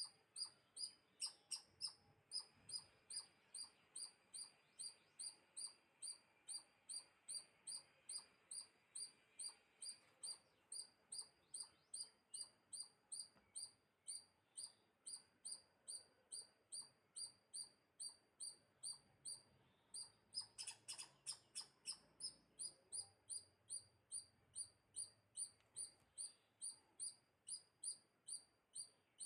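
A small bird chirping over and over, a high, thin chirp about twice a second with almost clockwork regularity. A brief flurry of quicker, falling chirps breaks in about a second in and again about two-thirds of the way through.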